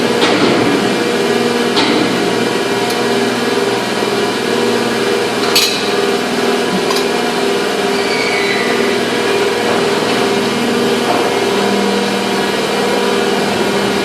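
Factory machinery running with a steady, loud hum made of several tones, broken by a few sharp metallic knocks, the loudest about five and a half seconds in.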